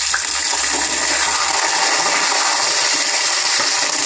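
Shallots, garlic and drumstick pieces sizzling steadily in hot sesame oil in a pot.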